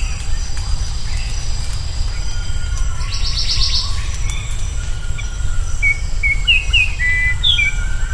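Wild forest birdsong: a fast, high trill about three seconds in, then a run of short chirps near the end, over faint thin whistles. A steady low rumble runs underneath.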